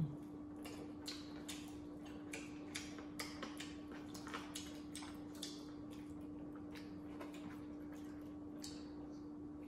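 Chewing and wet lip-smacking of people eating: soft, irregular mouth clicks and smacks, several a second at times, over a steady faint hum.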